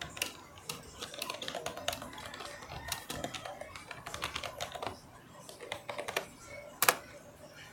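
Fingers tapping a smartphone's touchscreen: a quick, irregular run of light, typing-like clicks, with one sharper click near the end.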